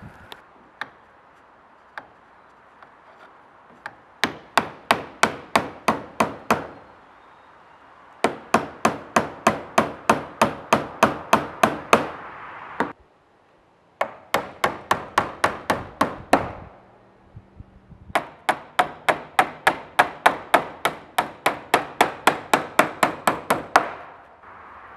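Hammer driving nails into wood, in four runs of quick, even blows at about four a second with short pauses between them.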